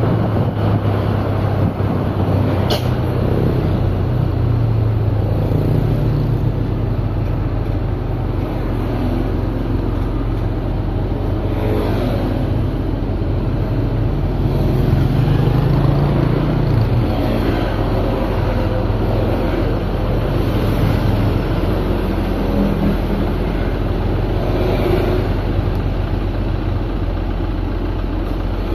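Steady low rumble of a running vehicle engine, with no clear changes in pace.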